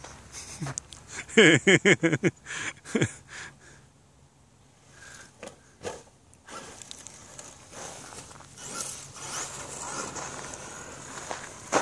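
Feet crunching on loose gravel, with a short burst of a person laughing about a second in. Later comes a faint hiss and whine of a radio-controlled truck running over the gravel.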